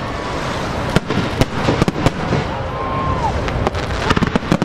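Aerial fireworks shells bursting: a run of sharp bangs and crackles over a low rumble, bunched about one to two seconds in and again in quick succession near the end.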